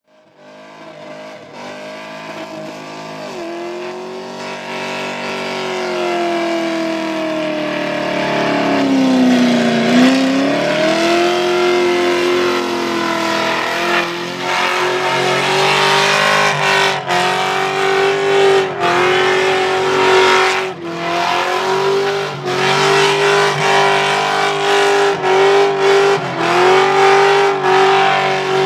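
Holden VT Commodore SS V8 doing a burnout: the engine is held at high revs while the rear tyres spin and squeal against the pad. The sound rises from quiet over the first few seconds; the revs sag about a third of the way in and climb back, and in the second half they drop briefly again and again as the throttle is worked.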